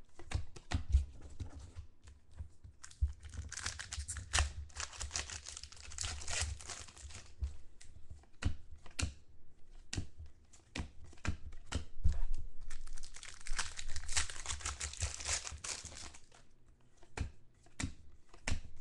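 Trading cards and their pack wrappers being handled by hand: card edges click as a stack of cards is flicked through, with two longer stretches of rustling, one a few seconds in and one past the middle.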